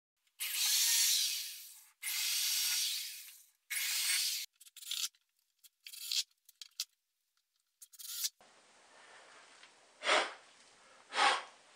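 Cordless drill driving screws into pine and plywood in three long bursts, then a run of short trigger blips. After about eight seconds the sound drops to a faint hiss with two brief swells.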